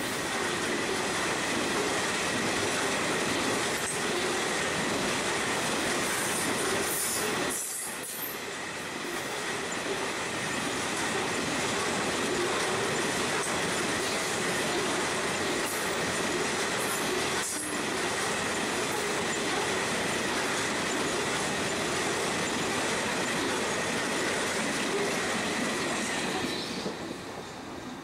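Grain hopper wagons of a long freight train rolling past on the rails, with a steady high-pitched wheel squeal over the rumble. The noise fades away near the end as the last wagons pass.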